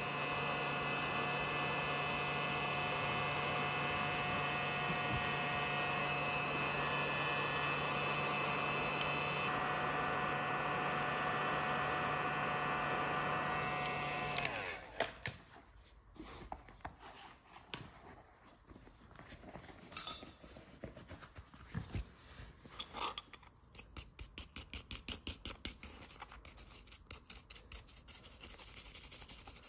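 A heat gun's blower runs steadily with a hum, then cuts off about halfway through. A wire brush then scrubs burnt paint off a die-cast metal toy truck body in scratchy strokes, irregular at first and turning into quick, even strokes near the end.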